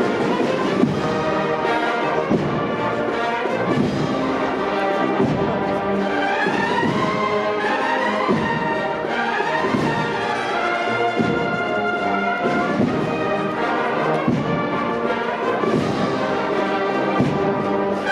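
Procession brass band playing a slow march, sustained brass chords and melody over a regular drum stroke about every one and a half seconds.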